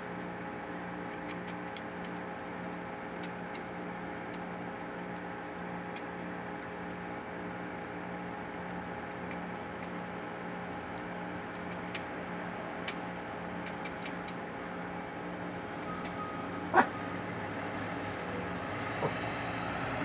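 A steady mechanical hum made of several steady tones. Faint scattered ticks and a few sharper knocks sound over it, the loudest about seventeen seconds in.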